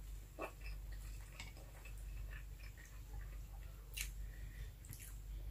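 Close-up chewing with small scattered mouth clicks and the light sounds of fingers picking at fried milkfish and rice on a plate. A sharper click comes about four seconds in, over a steady low hum.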